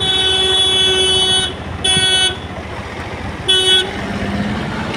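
A vehicle horn honking on one pitch: a long blast of about a second and a half, then two shorter toots, over road and engine noise.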